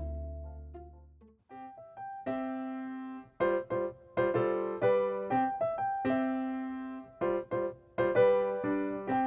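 Background music: a light piano tune of single notes and chords, which comes in after a low held bass note dies away in the first second and a half.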